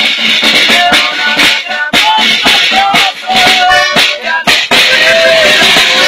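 A small band playing live: accordion and saxophone melody over strummed guitar chords, with regular snare drum hits.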